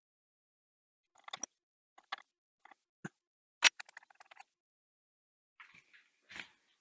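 Small hand-held parts and tools being handled on a workbench: a scatter of irregular clicks and knocks, the loudest a single sharp knock about halfway through, with a short rattle near the end.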